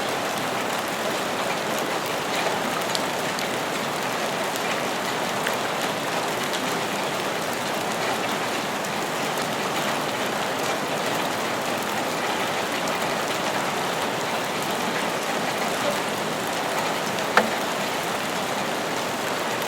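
Steady rain: an even hiss of rainfall with faint scattered drop ticks, and one sharper drop click near the end.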